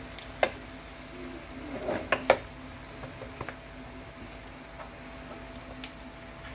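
Metal slotted spatula tapping and scraping against a rectangular egg pan a few times, over the faint sizzle of a thin egg yolk sheet cooking on a gas burner and a steady low hum.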